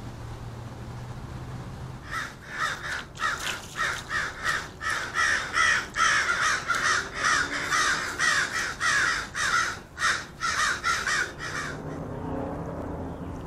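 Crows cawing in a rapid run of harsh calls, about two to three caws a second, starting about two seconds in and stopping near the end.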